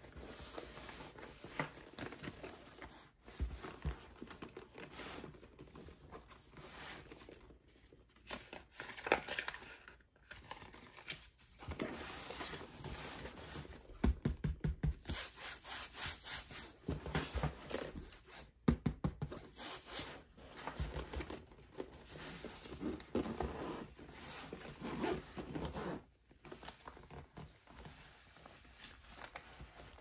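Drone packaging being handled by hand: irregular rubbing and scraping, with short runs of rapid clicks and a few light knocks.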